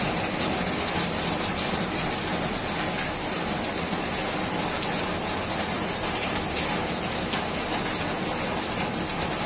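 Heavy rain pouring down steadily: a dense, even hiss with many small individual drop hits close by.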